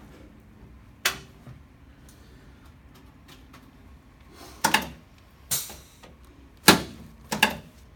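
Sharp clicks and knocks from a chiropractic adjustment of the lower spine: one about a second in, then a quick run of about five in the second half.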